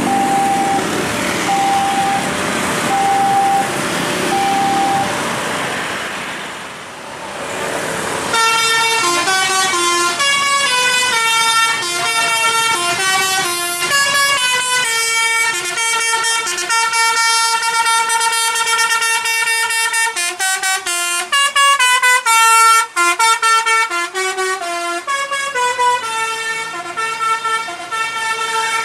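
A bus's musical air horn (a 'telolet'/basuri horn) playing a tune of stepped notes for about twenty seconds, starting about eight seconds in. Before it comes a rushing noise with a short beep repeating every second or so.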